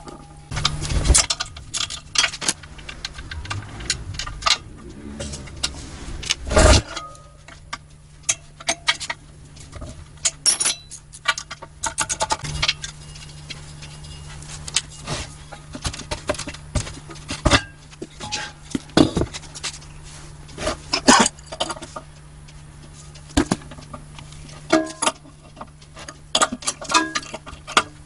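Irregular metal clicks, clinks and knocks of a 12 mm spanner working the bolts that hold an air compressor's pump and motor to its steel tank, with a couple of heavier knocks in the first seven seconds.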